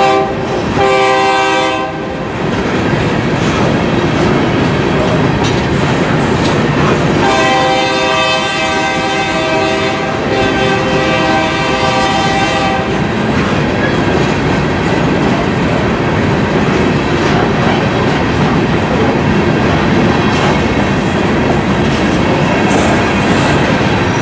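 KCSM diesel freight locomotive sounding its horn: a short blast at the start and another about a second in, then one long blast from about 7 s to 13 s. After that the freight cars roll past with a steady rumble and clickety-clack of wheels over the rail joints.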